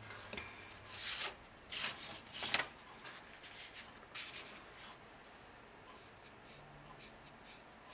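Paper rustling and sliding: a few short bursts in the first three seconds as a sheet of photocopies is lifted and moved. Softer rubbing follows, a paintbrush stroked over watercolour paper.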